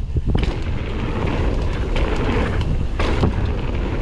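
Kona Process 153 mountain bike riding fast down a dirt trail: a steady rush of wind on the GoPro's microphone over tyre noise and the rattle of the bike, with a few sharp knocks from bumps, the plainest about three seconds in.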